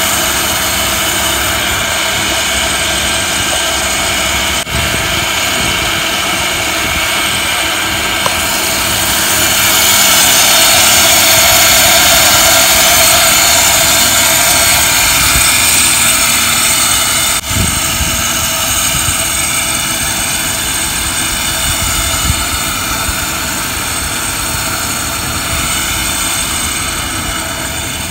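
Motor-driven capstan winch running steadily as it hauls rope, hoisting a load up a tower; it grows louder for several seconds in the middle.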